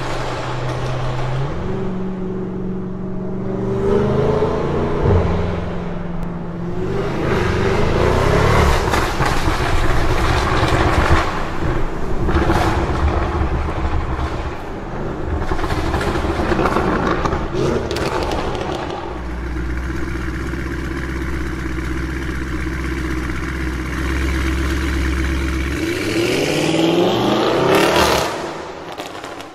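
Audi RS4 Avant's twin-turbo V6 through an Akrapovič exhaust, revving and accelerating, with its note repeatedly rising and falling in pitch. It settles into a steady low drone for several seconds in the latter half, then rises once more near the end before fading.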